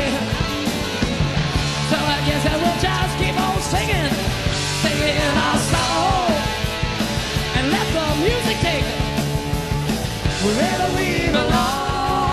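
Live hard rock band playing: an electric guitar lead with bending, sliding notes over bass and drums.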